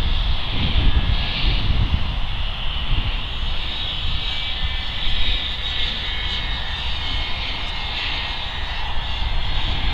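Radio-controlled model jets flying past, a steady high whine that swells and fades as they pass, over wind rumbling on the microphone.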